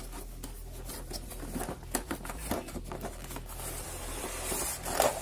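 A cardboard box being opened by hand: scraping and rustling of the flap and lid, then crinkling of the plastic-wrapped contents as they are pulled out near the end.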